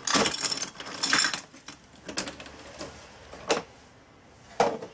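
Hard plastic clattering and clicking as the latches of a Keter Connect parts organizer are undone, its lid is opened and its small red plastic bins are lifted out. There is a dense rattle at the start and again about a second in, then a few separate knocks.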